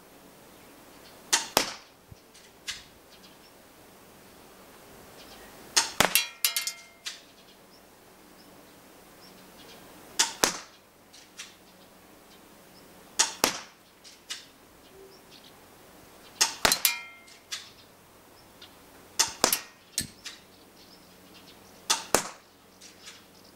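KWC Taurus PT24/7 spring-powered airsoft pistol being fired: about seven sharp shots, three to four seconds apart, some followed closely by a second click, with fainter clicks in between.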